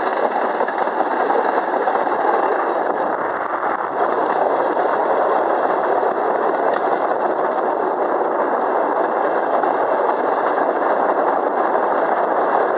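Rail draisine running steadily along an old railway track: a continuous mechanical running noise from the vehicle and its wheels on the rails.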